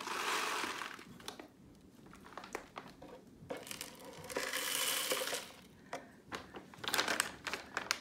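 Plastic bag of bird seed crinkling as a small scoop digs into it, with the dry rustle and rattle of seed, in three bouts of rustling and small clicks with quieter pauses between.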